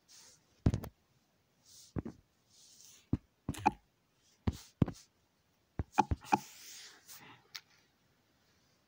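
Handling noise from a phone being held and tapped: about a dozen sharp, irregular taps and knocks, some in quick clusters, with a few soft hissy puffs between them.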